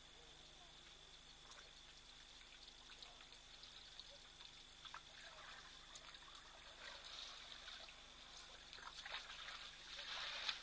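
Faint splashing and dribbling of water as elephants drink at a waterhole, their trunks drawing up and spilling water. The splashes grow busier towards the end.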